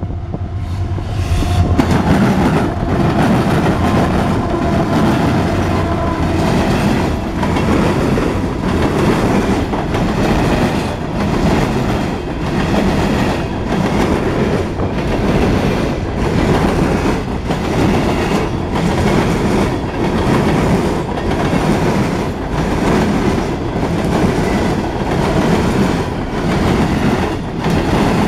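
CSX coal train passing close by. In the first couple of seconds the diesel locomotives' engine hum rises as they come up. Then coal hopper cars roll past with a steady rumble and a regular clickety-clack of wheels over the rail joints, about one click a second.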